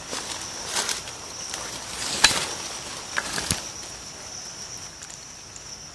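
Hands scrabbling through dry leaf litter on rock: rustling with a few sharp crackles and knocks, the loudest about two seconds in. A steady high insect drone runs underneath.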